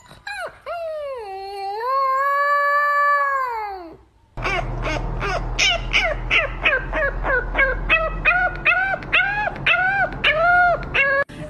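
A husky-type puppy howls once, a long howl that dips in pitch, then holds and falls away. After a short break a French bulldog-type puppy gives a quick run of short rising-and-falling howls, about two a second, over a low steady hum.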